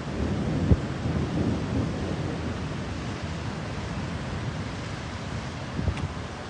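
Floodwater rushing down a wadi torrent, a steady roar of water with a deep rumble. A short thump comes under a second in and another near the end.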